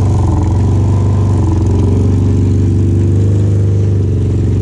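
A vehicle engine idling, a steady low running that holds the same speed throughout.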